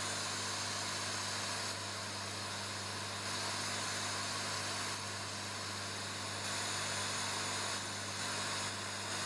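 Analog white noise from a 12 V zener diode noise circuit played through a speaker: a steady hiss with a low hum under it, the level stepping slightly up and down every second or two.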